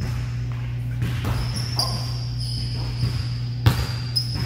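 A basketball thudding on a hardwood gym floor several times, the loudest hit a little over two-thirds of the way in. Short high sneaker squeaks come between the hits, over a steady low hum.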